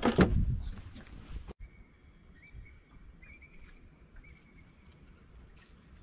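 Wind buffeting the camera microphone, with a knock about a quarter second in, cutting off suddenly after about a second and a half. Quiet follows, with faint high steady tones and a few faint clicks.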